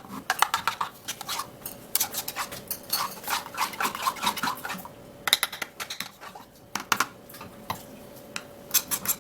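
A spoon clinking and scraping against a bowl in quick runs of taps, stirring a mashed banana, yogurt and milk mixture.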